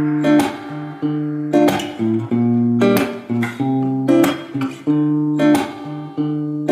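Background music: plucked guitar notes and chords in a repeating pattern, each pluck ringing and fading.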